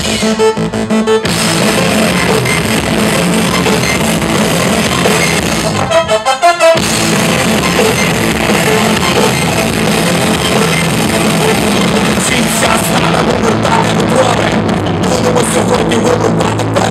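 A live rock band playing: electric guitar, bass and drum kit. About six seconds in, the band breaks briefly into a few short, choppy hits before the full sound returns.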